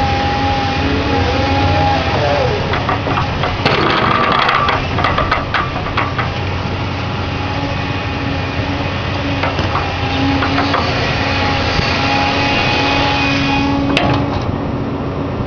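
Doosan DX235LCR excavator's diesel engine and hydraulics running under load, with a whine that glides in pitch near the start. A cluster of knocks and rattles comes about four seconds in, and a single sharp click near the end.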